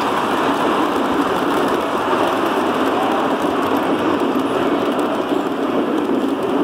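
Model passenger train running along a layout's track: a steady, even running noise with no distinct clicks or horn.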